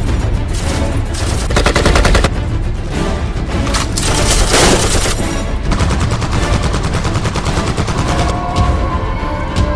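Film sound-effect bursts of rapid automatic gunfire over dramatic background music, with one stretch of fire about a second and a half in and another around four to five seconds in.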